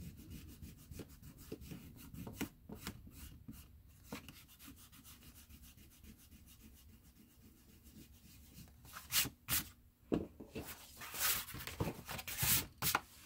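An eraser rubbing pencil lines off watercolour paper in quick back-and-forth strokes. Near the end come several louder brushing and rustling sounds as the paper is handled.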